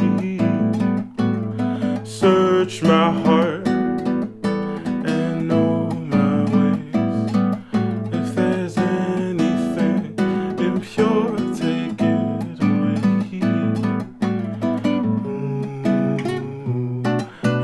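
Acoustic guitar strummed and picked in a slow song, with a man's voice carrying a wordless sung melody over it.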